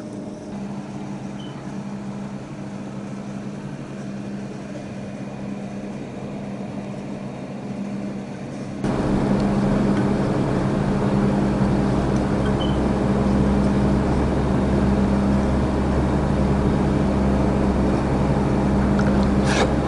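Steady machine hum of several fixed low tones, with no speech, which gets louder and fuller about nine seconds in.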